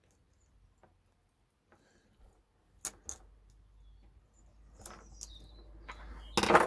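Small hand tools and plastic connector parts being handled: a few faint ticks, two sharp clicks about three seconds in, then a louder short clatter near the end.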